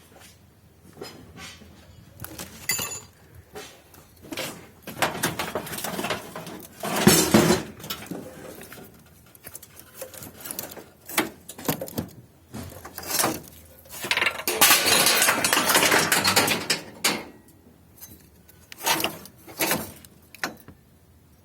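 Hard objects being handled and moved, most likely scrap metal: irregular clanks and clinks, with two longer spells of rough scraping or rattling, one about a third of the way in and a longer one about two-thirds through.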